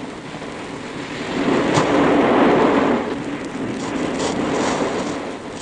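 Sea surf washing on a beach, one wave swelling about a second in and slowly ebbing, with a few faint knocks.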